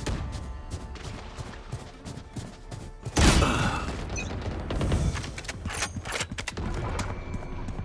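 Video game gunfire: repeated shots over background music, with one loud blast about three seconds in.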